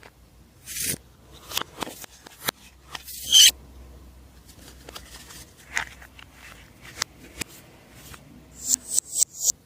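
Slime being squeezed and mixed by hand: irregular sticky clicks and crackles as air pockets pop. There is a louder burst about a third of the way in and a quick run of four near the end.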